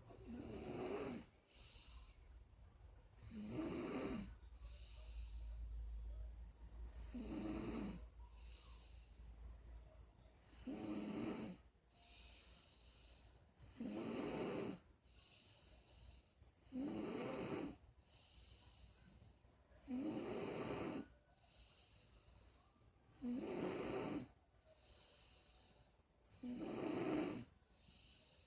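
Steady, rhythmic snoring: one snore on each breath, about every three seconds, with quieter breathing in between.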